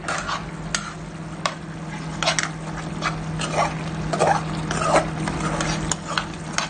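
A spatula stirring and scraping through a simmering sardine and pumpkin curry in a pan, with irregular knocks and scrapes against the pan over a steady low hum.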